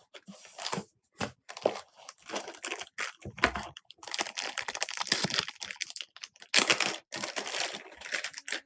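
Irregular crinkling and rustling of plastic packaging or film, with small clicks and taps of computer parts being handled.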